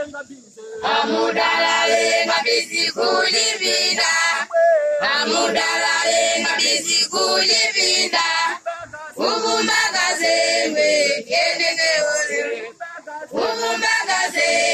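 A congregation of men and women singing a hymn together, in phrases with short pauses every few seconds.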